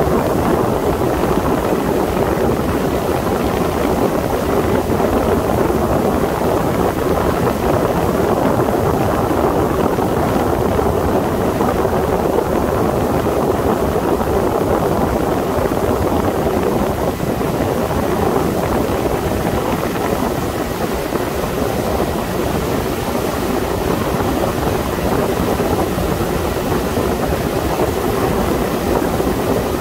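Sea Ray 21 motorboat underway: the steady drone of its engine mixed with the rush of wind and water past the boat.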